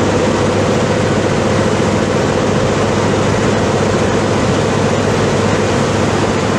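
Steady, loud drone of an aircraft in flight, heard in the cabin with the side door open: engine noise mixed with rushing air.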